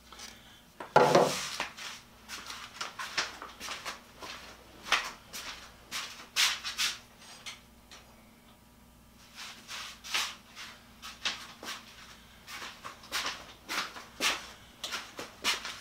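Workshop handling noise: a heavy thump about a second in, as of a drill motor set down on a wooden workbench, then a string of sharp clicks and clatters of tools being handled and rummaged through.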